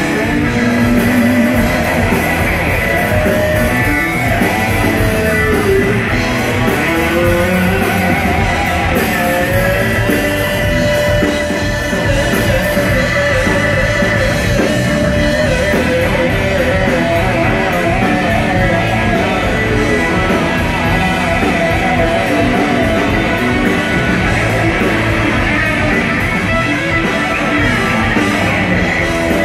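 Live blues-rock band playing loud electric guitars over drums and bass, with a lead line that slides and bends in pitch.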